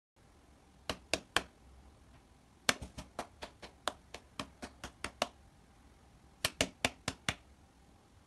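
Light slaps of a cat's paw against a person's hand: three quick pats, then a run of about a dozen at roughly four a second, then five more near the end.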